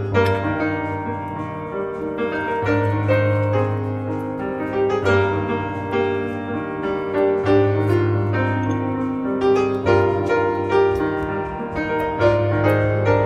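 Background piano music: a melody of struck notes over held bass notes that change every two to three seconds.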